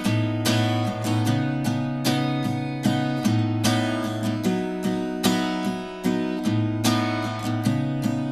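Music: acoustic guitar strummed in a steady rhythm through changing chords, the instrumental opening of a song.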